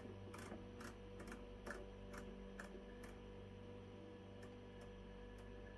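Faint clicks of a finger pressing a button on an electric pressure cooker's control panel, about two a second at first, then fewer, as the cooking time is stepped up, over a faint steady hum.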